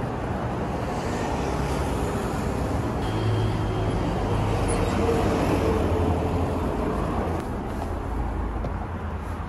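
Road traffic noise, with a motor vehicle passing; its low engine hum grows loudest about halfway through, then eases off.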